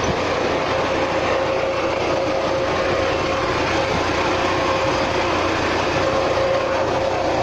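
UAZ Patriot engine running steadily under the load of the air-conditioning compressor on full, with a steady tone over the engine noise. The drive belt has stopped squealing after being sprayed with belt lubricant.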